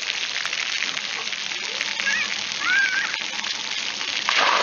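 Splash pad water jets spraying and spattering onto wet concrete: a steady hiss, with a louder gush of water near the end. Two short high-pitched wavering calls are heard about halfway through.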